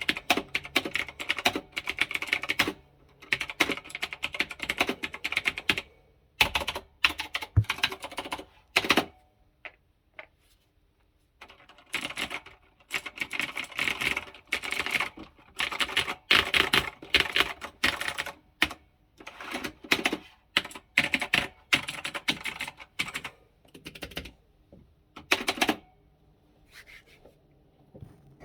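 Stock onn gaming keyboard being typed on fast, its keys clicking in dense bursts, with short pauses about ten seconds in and near the end.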